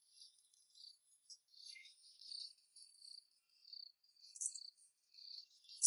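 Faint insects chirping, crickets by their high, uneven trills, with nothing in the low range.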